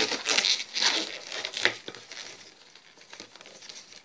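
Inflated latex modelling balloon rubbing and stretching under the fingers as its two ends are tied together, busiest in the first couple of seconds, then fainter.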